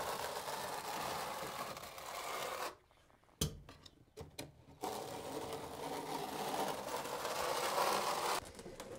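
Steel V-notch trowel scraping and combing thinset mortar across a subfloor, a steady rasping in two stretches, with a short near-silent break about three seconds in that holds a few sharp clicks.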